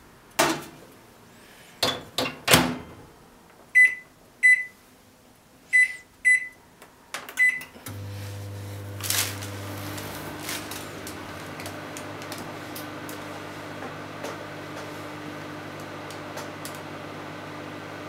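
A bowl set down inside a microwave oven and the door shut with a few clunks, then five short key beeps as the timer is set. About eight seconds in, the microwave starts heating and runs with a steady hum.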